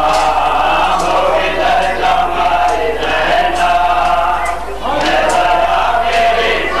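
Men's voices chanting a nauha, a Shia mourning lament, together in a slow melodic line. Repeated sharp smacks sound through the chant about once a second.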